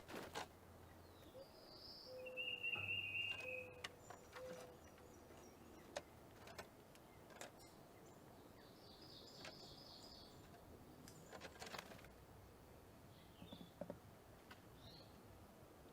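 Wild birds calling against faint background noise: a short buzzy trill about two and a half seconds in, a higher trill around nine seconds in, and scattered soft chirps and clicks between them.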